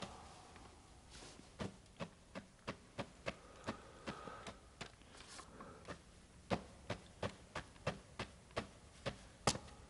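Hard-soled footsteps on a floor, about three steps a second, louder in the second half.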